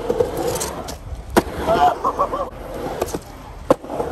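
Skateboard wheels rolling on concrete with a steady rumble, and two sharp clacks of the board hitting: one about a second and a half in, another near the end.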